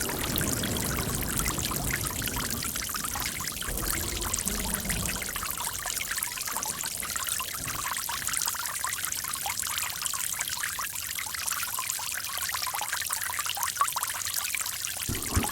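Running water trickling and splashing steadily, with a deeper rush underneath in the first half that thins out later.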